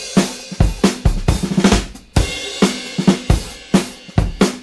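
Background music with a busy drum-kit beat: kick drum, snare and cymbals.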